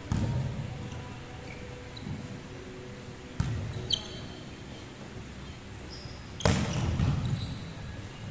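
Volleyball being struck three times during a rally, a sharp smack about every three seconds with the last the loudest, each echoing around a large hall. Brief high squeaks of sneakers on the wooden court come between the hits.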